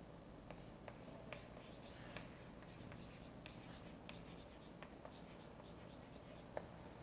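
Chalk writing on a chalkboard: faint, irregular taps and scratches of the chalk stick as words are written by hand, with a slightly sharper tap about six and a half seconds in.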